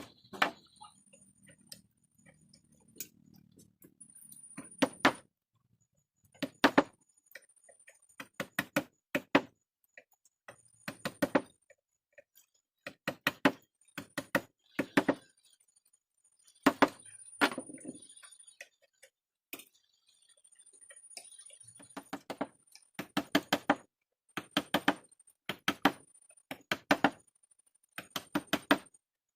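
A mallet striking a wood-carving chisel into hardwood: sharp knocks in quick clusters of two to five, with short pauses between.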